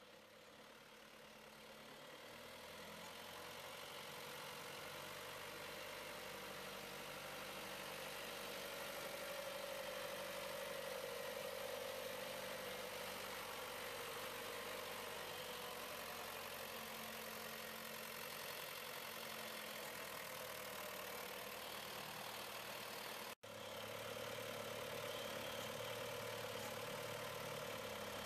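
John Deere 2650 tractor's diesel engine running steadily under the load of logs on its front loader, growing louder over the first several seconds as it comes closer. The sound cuts out for an instant near the end.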